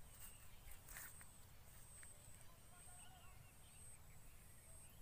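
Near silence: faint rural outdoor ambience, with a high thin buzz that comes and goes, a few faint chirps, low rumble, and a couple of clicks about a second in.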